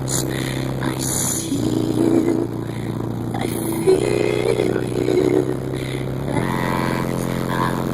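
Bass-heavy song playing loud through a car stereo with two Fi BL 12-inch subwoofers on about 2500 W RMS, its deep bass notes holding and changing pitch every couple of seconds.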